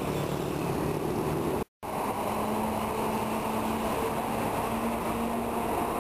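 Steady city street traffic noise with a low engine hum. The sound cuts out for a moment just under two seconds in.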